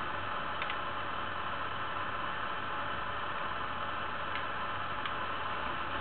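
Steady hiss of background recording noise, with a few faint clicks: one about half a second in and two near the end.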